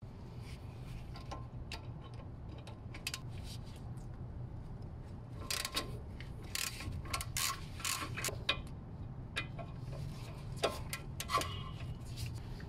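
Ratchet wrench and socket clicking and clinking at a bolt on a car's front brake caliper, in irregular bunches of sharp clicks over a steady low hum.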